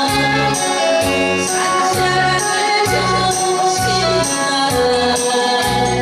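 A woman singing into a microphone over loud backing music with a steady beat of about two pulses a second.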